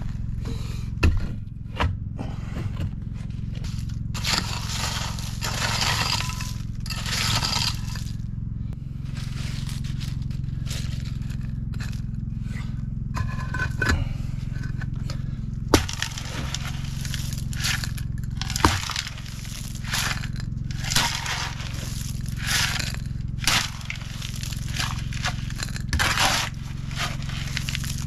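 Irregular scraping and crunching of rock and gravel, with a few sharp knocks, as loose rock is shovelled and spread around concrete pavers. A steady low hum runs underneath.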